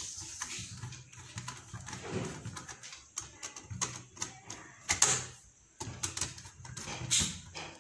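Small screwdriver turning and loosening a terminal screw on a modular wall switch, making irregular small clicks and metal scrapes, with a sharper click about five seconds in.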